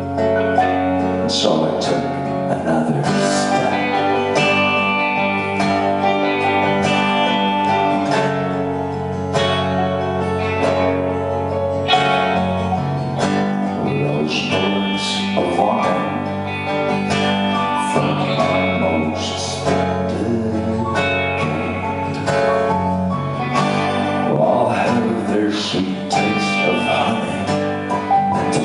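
Live band music led by strummed acoustic guitar, with singing.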